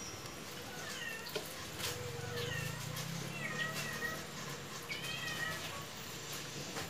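A cat meowing: about five short, high mews that bend up and down in pitch, with a few light clicks in between.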